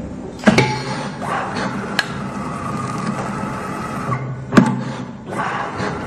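Coaxial cable stripping machine working through its cycle: a sharp clack about half a second in, then a steady machine whine for about three seconds, then another sharp clack and the whine starting again.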